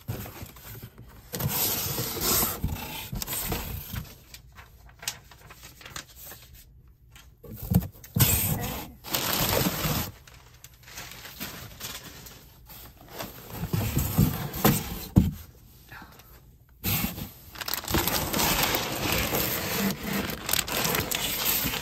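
Shipping box and its packaging being handled and opened: uneven bursts of scraping, rustling and tearing with pauses between them, and a few knocks.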